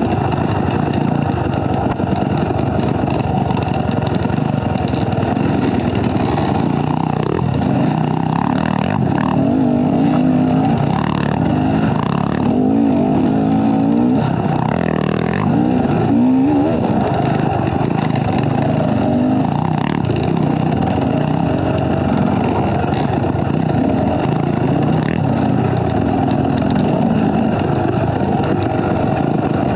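Off-road dirt bike engine running under load on a trail ride, revving up and falling back with the throttle again and again.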